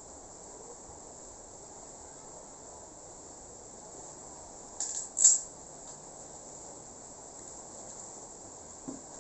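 Crickets chirring in a steady high-pitched drone, with two short sharp sounds about five seconds in, the second louder.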